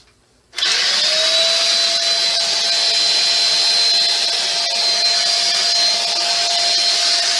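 Dibea handheld mattress vacuum cleaner switched on about half a second in: its motor quickly rises to a steady high-pitched whine over a steady hiss of air, then runs steadily.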